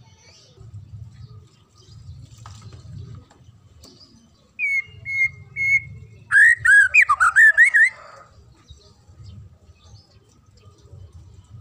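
White-rumped shama (murai batu) singing: three clear whistled notes about four and a half seconds in, then a loud, rapid phrase of rising and falling whistles lasting under two seconds.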